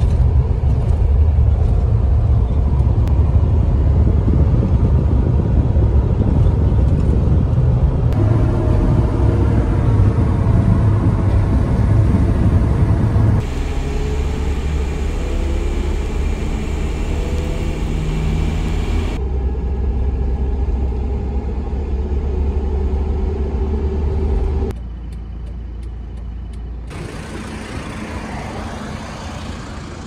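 A vehicle driving, its engine and road noise making a steady low rumble. The sound changes abruptly several times, at about 8, 13, 19 and 25 seconds in, as if cut between separate driving clips, and is quieter over the last few seconds.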